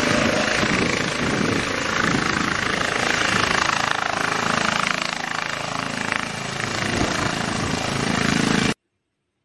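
Eurocopter EC135 police helicopter hovering low and moving off, its main rotor and turbines running loud and steady. The sound cuts off suddenly near the end.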